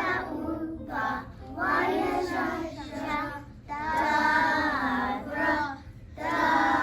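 A child singing a song in several long, held phrases with short pauses for breath between them.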